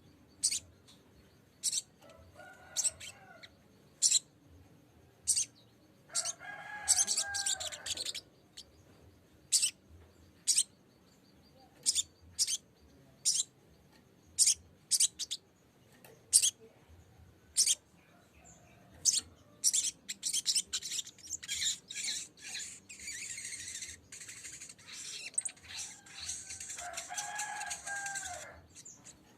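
Sogok ontong (little spiderhunter) calling: sharp, very high single chips about once a second, broken by fuller chattering song phrases, a long one about a quarter of the way in and another running through most of the last third.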